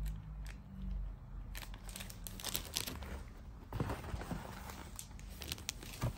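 Clear plastic bag of a craft kit crinkling and crackling as it is handled, in irregular bursts, with a couple of soft handling bumps.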